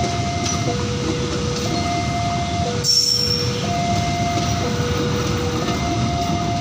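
Passenger train coaches rolling past close by with a steady rumble of wheels on rails, with a brief high squeal about three seconds in. Over it, the level-crossing warning alarm sounds a two-tone high–low signal, switching about once a second.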